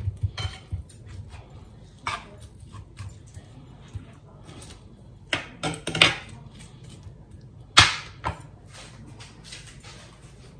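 A metal spoon scraping and clinking against an earthenware tagine dish as chicken, onion and herbs are mixed in oil, in a string of short strokes; the two sharpest come about six and eight seconds in.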